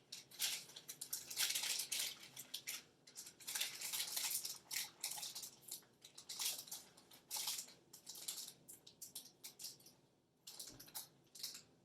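A Siberian husky puppy chewing a duck and mango chew: irregular crunching and gnawing in quick clusters, dense at first and sparser in the second half, with a short pause near the end.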